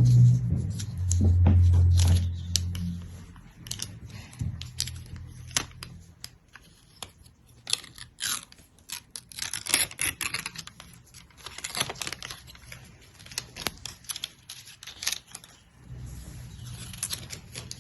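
Packaging being handled: irregular crackles, clicks and tearing of paper and plastic wrapping. A low hum runs through the first three seconds and comes back near the end.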